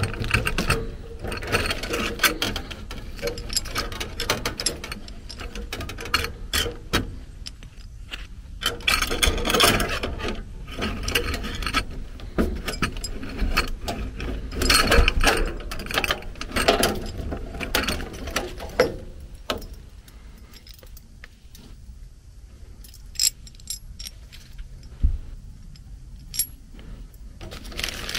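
Irregular clicking, scraping and rattling of hand tools on copper lines and brass fittings as a bolt-on thermal expansion valve (TXV) is unbolted and handled, quieter for the last several seconds.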